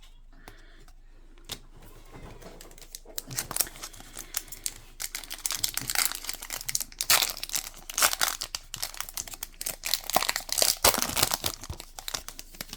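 Trading card pack wrapper being crinkled and torn open by hand: dense crackling and rustling that starts about three seconds in.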